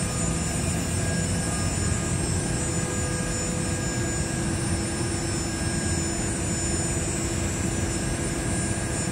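Steady drone of running industrial machinery around a CNC router, a broad hum with several steady tones on top, unchanging in level throughout.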